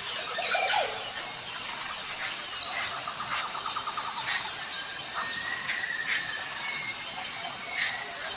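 Forest ambience: a steady high drone of insects with scattered bird chirps, a rapid trill around three seconds in, and a short squealing call about half a second in.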